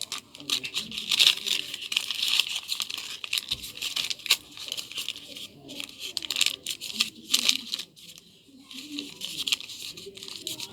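Gift wrapping being crinkled and torn open by hand: a dense, irregular crackling that keeps going with short pauses, quieter for a moment near the end.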